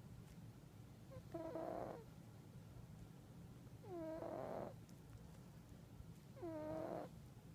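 Domestic cat snoring in its sleep: three short, squeaky, whistling snores, one with each breath about every two and a half seconds, each dipping in pitch and then levelling off, over a steady low rumble.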